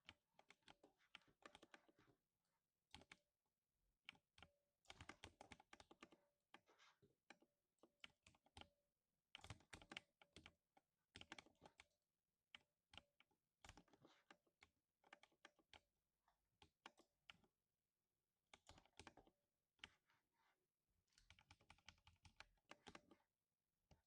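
Faint typing on a lubed 60% mechanical keyboard: runs of quick keystrokes with brief pauses between them, giving the deep 'thock' of lubricated switches.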